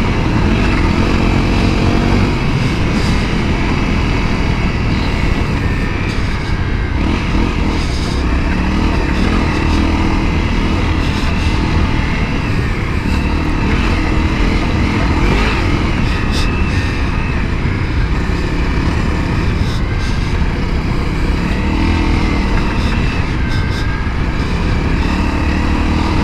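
Honda CRF250L's single-cylinder engine running under load on a dirt trail, its pitch rising and falling over and over as the throttle is opened and rolled off, with a few brief knocks.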